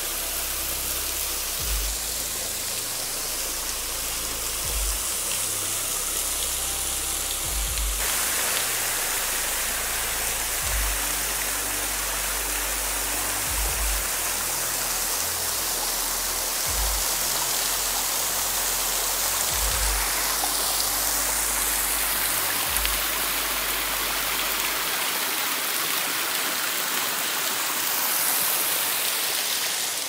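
Steady rush of a small waterfall splashing over rocks and falling as a curtain of drops, under background music with deep bass notes. The water gets louder about a quarter of the way in, and the music drops out a few seconds before the end.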